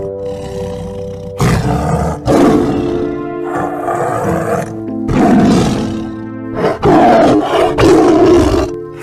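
A large animal roaring about six times in a row, rough and loud, over background music with steady piano-like notes.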